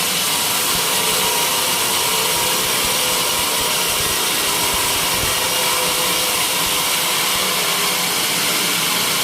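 Homemade sawmill blade cutting through a white teak beam: a steady, unbroken sawing noise.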